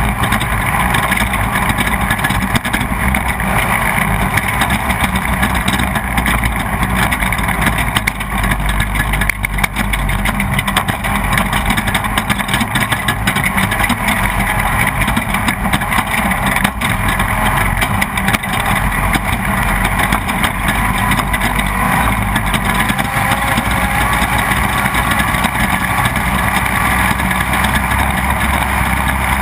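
Off-road race vehicle's engine running hard at speed, heard onboard, mixed with wind noise and frequent jolts and rattles from rough terrain.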